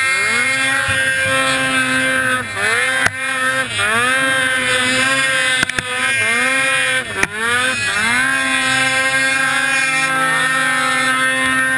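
Ski-Doo Summit X 154 mountain snowmobile's two-stroke engine running at high revs in deep powder. The revs drop and pick back up four times as the throttle is eased off and reapplied, then hold steady for the last few seconds.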